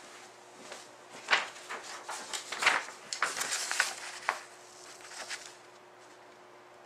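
A printed paper sheet being picked up and handled, rustling in stops and starts with a few sharper crackles, dying away after about four and a half seconds.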